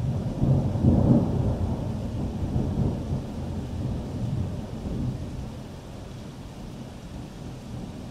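Thunder rumbling, loudest about a second in and then slowly fading away over the next several seconds.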